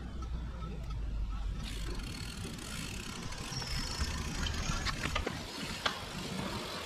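Bicycle riding on a road: steady tyre and wind noise with a low rumble, and a few sharp clicks scattered through it.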